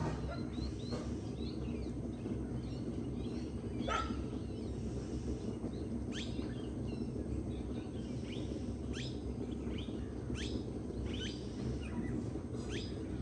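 Several birds singing and calling, many quick, sharp notes sliding downward in pitch, over the steady low rush of a flowing forest river.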